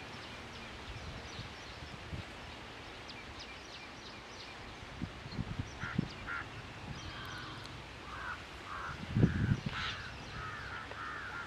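A bird calling outdoors: a run of about six short calls, roughly two a second, each rising and falling in pitch, starting about eight seconds in, with a few faint high chirps earlier. A low thump about nine seconds in is the loudest sound.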